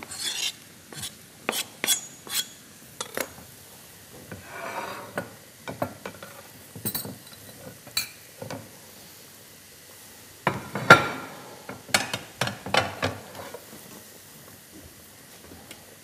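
A wooden spoon stirring and scraping chopped tomatoes and peppers in a frying pan, with repeated sharp knocks of utensils against the pan and dishes. A louder run of clatter comes about eleven seconds in.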